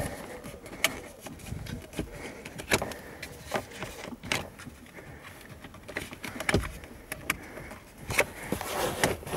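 Irregular sharp clicks and knocks of hands and tools handling parts during repair work on a car's steering wheel assembly, about seven louder ones spread through, with faint rustling between.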